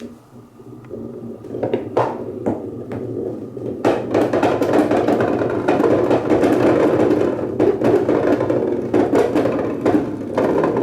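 Balls rolling down a wooden marble run of HABA slopes and wooden rails. A few separate clacks of balls on wood come first. From about four seconds in there is a steady, dense rattle with clicks all through it, as many roll along the track at once.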